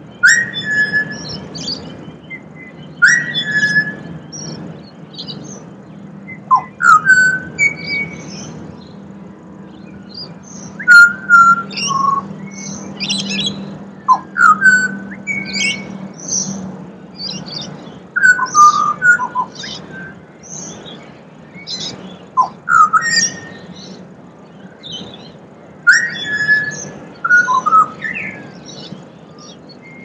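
Pied butcherbird singing: short phrases of clear, fluted whistles that slide up and down, repeated every three or four seconds, over a low steady background hum.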